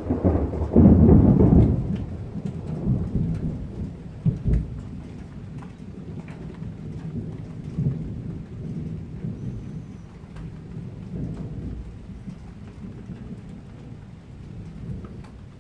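Thunder: a loud clap in the first two seconds that rolls on in lower rumbles and fades over the following seconds, with rain falling.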